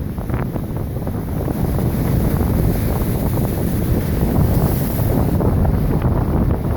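Strong wind buffeting the microphone over the rush of big lake waves breaking, a loud, steady noise without a break.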